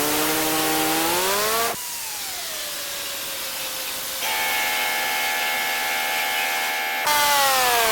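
Whining motors of an automatic car wash machine over a steady hiss. The pitch slides up and down and changes abruptly three times.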